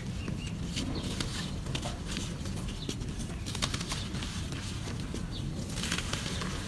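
Clumps of dry black charcoal sand crumbling, a scatter of crisp crackles and crunches over a low steady rumble.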